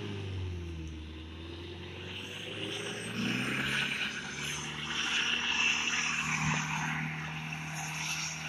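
Mitsubishi Pajero's engine running as the off-roader drives across sand, its note dropping in the first second and then holding steady.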